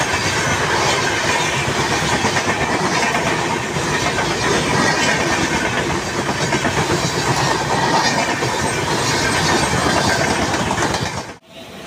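Express train coaches passing close by at speed, with a loud, steady rush of wheels on rail. It cuts off abruptly near the end.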